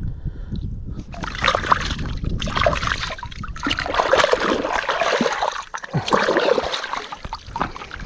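Water splashing and sloshing in irregular bursts, starting about a second in, as a freshly cleaned fish is rinsed by hand in river water.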